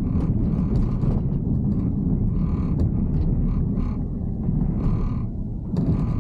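Road and tyre noise of a Tesla Cybertruck driving on a wet road: a steady low rumble with short, irregular swells of hiss.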